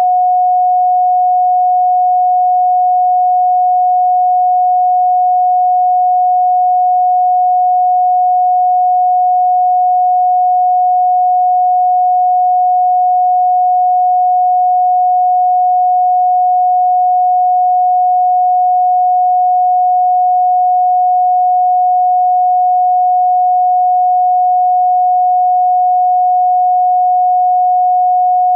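A steady pure sine tone at 728.131 Hz, one unbroken pitch at constant loudness.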